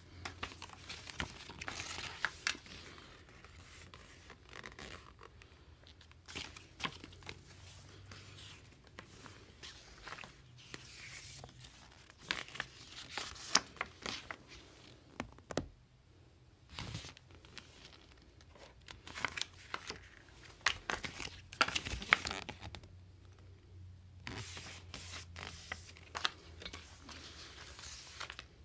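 Packaging being torn open and handled: ripping, crinkling and clicks that come in irregular bunches with short pauses between them.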